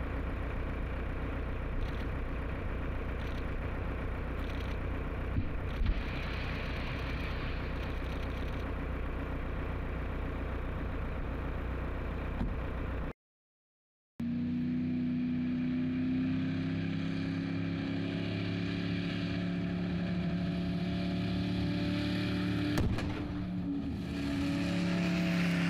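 Engines of a convoy of heavy trucks and cars running steadily as they drive across the desert. The sound cuts out for about a second near the middle. After that a deeper engine note holds, its pitch slowly rising as the vehicles pull harder, with a brief sharp knock a few seconds before the end.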